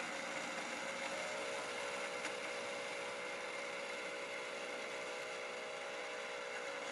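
Electrospinning machine running, a steady hum with a few constant tones over an even hiss, most likely the motor turning the drum collector.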